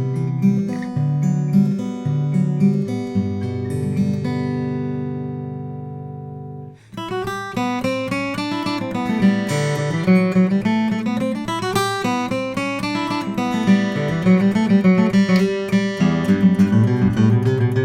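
A Martin CS-OM-13 acoustic guitar, with a Swiss spruce top and Madagascar rosewood back and sides, being played solo. After a few picked notes, a chord is left ringing and fades out over about three seconds. A busier passage of notes then starts about seven seconds in.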